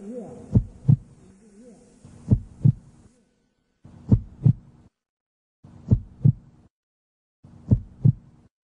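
Heartbeat sound effect: a slow double beat of low thumps, five pairs in all, one pair about every two seconds.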